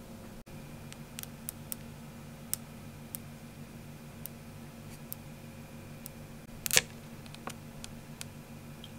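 Plastic snack pouch being handled: a dozen or so light crinkles and ticks, with one louder crinkle about two-thirds of the way through, over a steady low hum.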